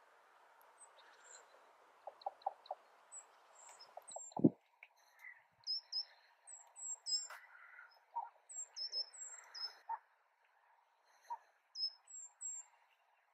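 Common ravens in flight giving their knocking 'toc toc toc' call: a quick run of about four short knocks some two seconds in, then more scattered knocks and calls. A short, louder sound that drops steeply in pitch comes about four seconds in, and high thin chirps from small birds run through.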